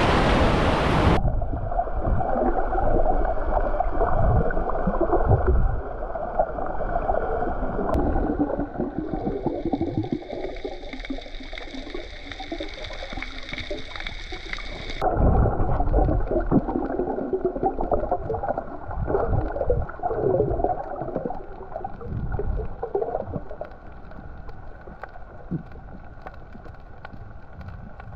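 About a second of surf and wind at the water's edge, then muffled underwater water noise picked up by a submerged camera: sloshing and gurgling with the high end cut away.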